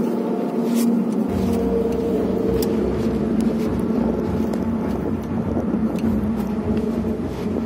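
A vehicle engine running steadily, with a deeper rumble joining about a second in.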